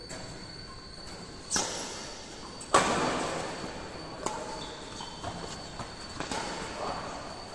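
Badminton rackets striking a shuttlecock in a rally, each hit echoing in a large hall. There is a sharp hit about a second and a half in and a louder one just under three seconds in with a long echo, then lighter taps.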